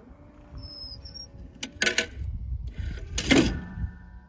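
A 28 gauge CZ Teal over-and-under shotgun fires once, about three seconds in, at a thrown clay target. It is preceded by a few sharp mechanical clacks about two seconds in.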